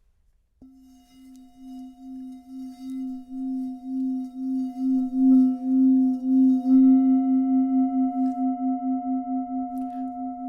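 A singing bowl is tapped about half a second in, then rings with a low tone and fainter higher overtones. The tone throbs in steady pulses and swells louder before easing off near the end.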